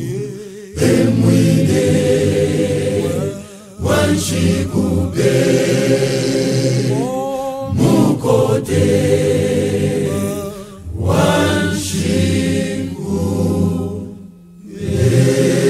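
Mixed gospel choir singing a Bemba hymn in many-voiced harmony, in sustained phrases with two short breaks between lines, about three and a half and fourteen and a half seconds in.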